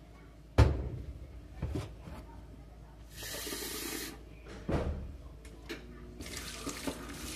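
Stainless steel saucepan knocking and clanking as it is handled, the loudest knock about half a second in. Kitchen tap water runs into the pot for about a second around three seconds in and starts again near the end.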